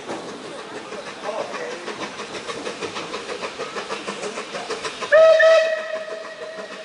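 Steam locomotive, the Bulleid light Pacific 34027 'Taw Valley', passing with a rapid, regular beat. About five seconds in it sounds one loud single-note whistle, strong for half a second and then tailing off.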